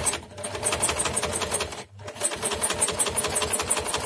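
A Janome household sewing machine runs with its front cover off, its needle-bar mechanism clattering in a fast, even rhythm. It stops briefly about halfway through, then starts again. The mechanism has just been oiled after seizing up from neglect, and it is being run to work the oil in.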